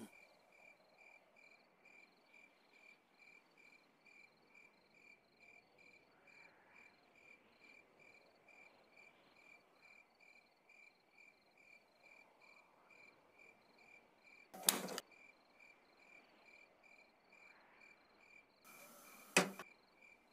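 A cricket chirping steadily and faintly in the background, about two chirps a second at a high, even pitch. Two short, sharp, louder sounds break in, about fifteen seconds in and again near the end.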